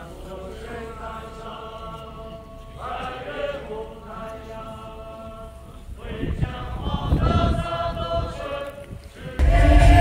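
A large group of performers chanting in unison in long held phrases. From about six seconds low beats join in, and shortly before the end the whole sound jumps suddenly much louder, with heavy drumming under the chant.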